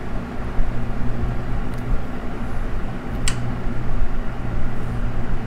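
Steady low mechanical hum, like a running fan or shop blower, with one sharp click a little past three seconds in.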